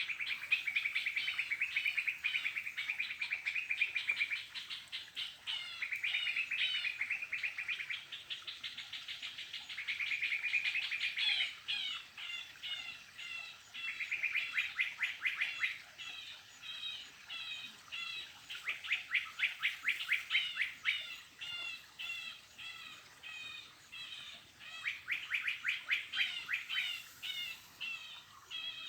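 A bird singing continuously, high-pitched. Rapid trills of a few seconds each alternate with runs of short repeated chirping notes, about three a second.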